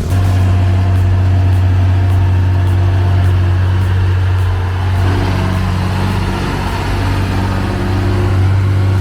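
Heavy machine's engine running steadily with a deep, even hum, easing off slightly about halfway through and then picking up again.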